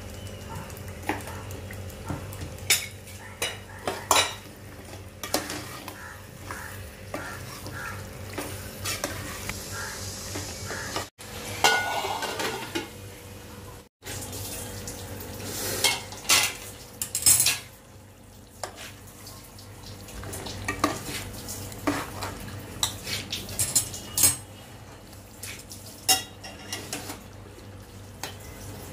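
Metal spoon stirring and scraping chicken and potatoes in a hammered metal cooking pot, with many sharp clanks of metal on metal at uneven intervals over a low steady hum.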